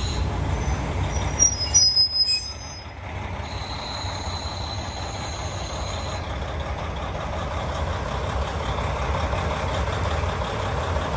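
KiHa 40 diesel railcar braking to a stop, with a brief high squeal about two seconds in. Its diesel engine then idles with a steady low rumble.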